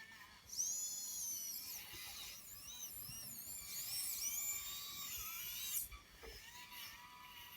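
Small electric motors and gearing of a brass-built RC model Atlas W150 wheeled excavator whining at a high pitch, the pitch rising and falling as the model's functions are driven, for about five seconds from half a second in.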